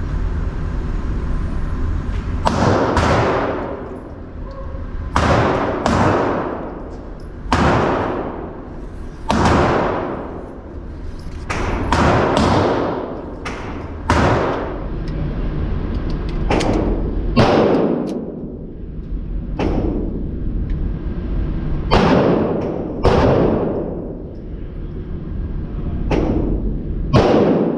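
Gunshots on an indoor pistol range, about sixteen irregularly spaced shots, one every second or two, each a sharp report followed by a long echoing decay off the range walls.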